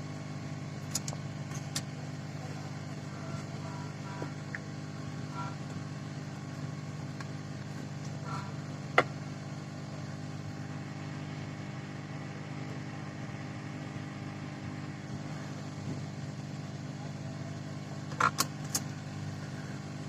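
A steady machine hum with a few light clicks about a second in, near the middle and again near the end.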